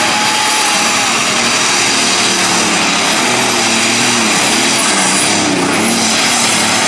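Super Stock pulling tractor's turbocharged diesel engine running flat out under full load as it drags the sled. It makes a loud, unbroken engine noise with a high, steady turbo whistle on top.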